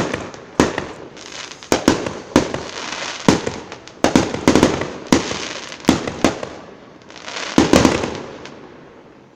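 Aerial fireworks shells bursting in a quick string of sharp bangs, about one every half second to a second, each trailing off after the bang. The last bursts come about a second and a half before the end and fade away.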